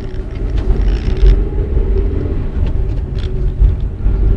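Vortex Tingo crossover pulling away from rest, heard inside the cabin: steady low engine and road rumble with a steady hum above it.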